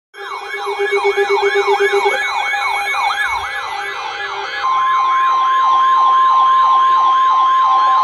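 Weather alert radios sounding their alarms for a severe thunderstorm warning. A warbling siren tone sweeps up and down about three times a second, with a pulsing beep over it in the first two seconds. About four and a half seconds in, the steady single-pitch NOAA Weather Radio warning alarm tone joins it.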